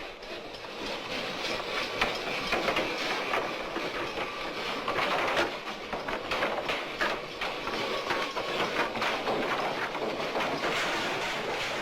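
Continuous rapid, irregular clattering and rasping with many sharp clicks, the busy noise of wood being worked in a carpentry workshop.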